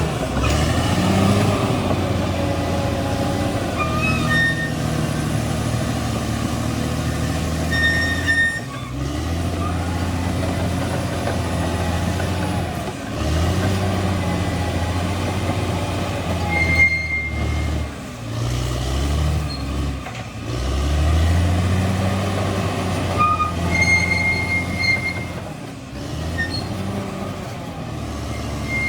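Crawler bulldozer's diesel engine working under load, its note dropping and climbing again about every four seconds as the blade digs in and the dozer backs off, with short high-pitched squeals now and then.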